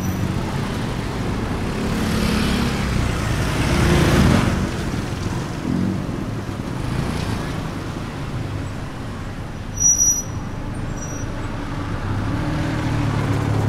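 Street traffic: vehicle engines running steadily, one vehicle swelling past about four seconds in. About ten seconds in there is a brief high-pitched tone.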